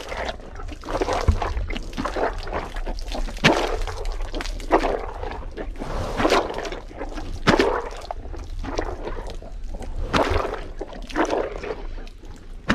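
Hippopotamus chewing a mouthful of watermelon and greens: wet, juicy crunching and squelching, with loud crunches coming irregularly every second or two.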